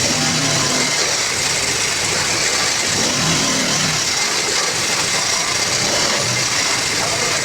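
Steady machine noise: a constant hiss with a faint low hum underneath, running evenly throughout.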